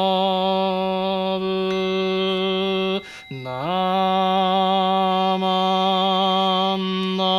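A Buddhist memorial chant: a male voice holding one long drawn-out chanted tone, breaking off about three seconds in for a breath and sliding back up into the same note.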